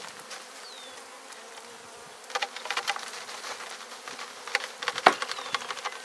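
Honeybees buzzing in a steady hum as they are shaken out of a wooden nuc box into a queen castle compartment. From about two seconds in, a run of sharp knocks and taps as the box is jolted, the loudest about five seconds in.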